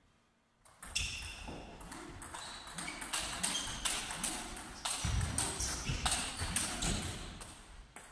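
Table tennis rally: the plastic ball clicking quickly back and forth off the bats and table, starting about a second in and dying away near the end. Lower thuds and squeaks of the players' footwork run underneath.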